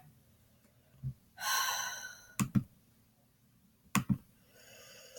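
A breathy sigh lasting about a second, followed by two pairs of sharp clicks, one pair just after it and one about a second and a half later.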